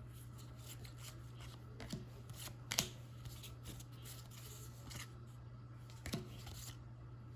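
Topps baseball trading cards being flipped through by hand: a few soft flicks and slides of card stock, the sharpest about three seconds in, over a faint steady low hum.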